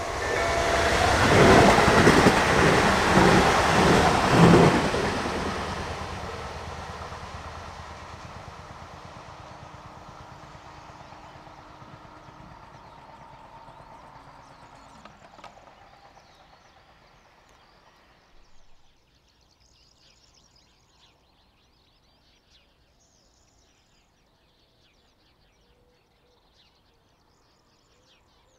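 Newag Impuls 45WE electric multiple unit passing over the level crossing: a loud rush with rhythmic wheel clatter for the first few seconds, then fading steadily as the train moves away, almost gone about 18 seconds in.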